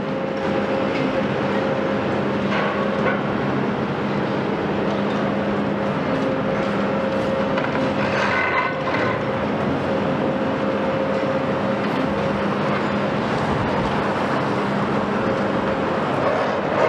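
Volvo EC700B high-reach demolition excavator working, its diesel engine and hydraulics running with a steady drone and a held tone. Occasional clatter, and a louder squealing crunch about eight seconds in, as the demolition attachment bites into the building's concrete.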